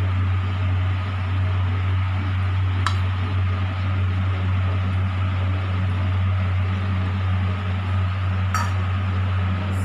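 Steady low hum with a hiss behind it, with two light metallic clinks of a spoon against a small steel bowl while food colour is spooned over the biryani, one about three seconds in and one near the end.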